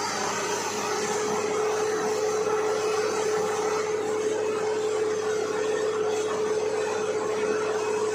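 Borewell drilling rig running: a steady, noisy machine sound with a steady mid-pitched tone over it.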